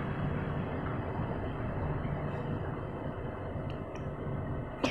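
Steady background hum and hiss, with one sharp click just before the end.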